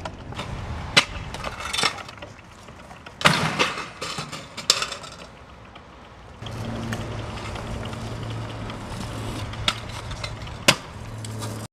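Kick scooter wheels rolling over concrete, with several sharp clacks as the deck and wheels hit the ground on tricks and landings. From about halfway a steady low hum runs underneath.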